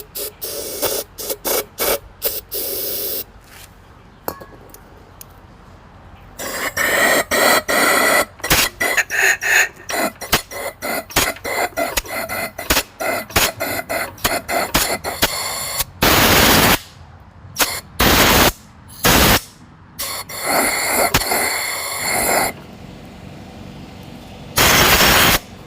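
Aerosol can of starting fluid sprayed in several loud hissing bursts down the spark plug hole of a Briggs & Stratton flathead engine, to clear excess oil from the cylinder, with many clicks, rattles and scraping noises between the bursts.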